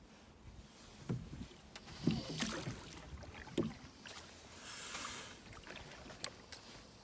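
Water sloshing and splashing in a small fishing boat, with a few irregular knocks and clatters against the hull.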